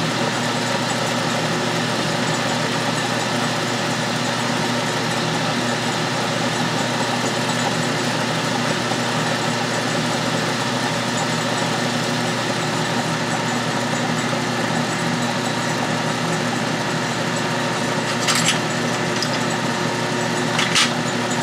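12-inch Atlas/Craftsman metal lathe running steadily: an even motor-and-drive hum with several steady tones. Two short clicks come near the end.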